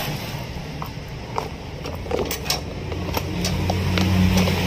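Workshop background: a low steady hum that swells near the end, with scattered light clicks and taps.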